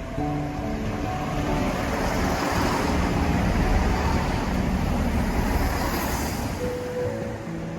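A train passing close by: a broad rushing rumble that builds to a peak about halfway through and then fades away, with background music underneath.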